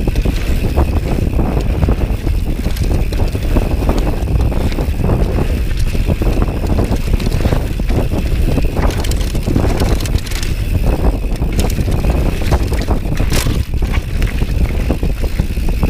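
Mountain bike riding fast down a dirt forest trail: wind buffets the microphone in a steady low rumble, while the tyres roll over the dirt and the bike clatters and clicks over bumps.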